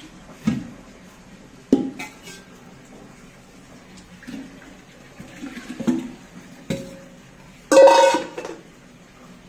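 Earthen and stainless-steel pots being handled: a series of separate knocks and clinks, then a loud, ringing clatter of a steel vessel being set down near the end.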